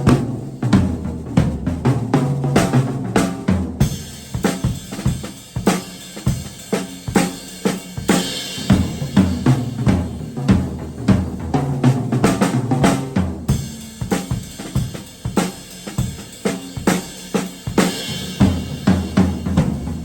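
Vintage 1960s Ludwig double bass drum kit played solo: a steady groove of snare and bass drum strokes over hi-hat and cymbals, with the low drums ringing. The cymbals drop out briefly about four seconds in and again past the middle.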